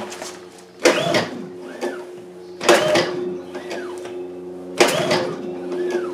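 Honda EU2200i inverter generator's recoil starter yanked three times, about two seconds apart, each pull a sharp whirring turn-over of its single-cylinder engine that rises and falls in pitch. The engine has the choke on and does not catch, as the fresh fuel has not yet reached the carburettor on this first start.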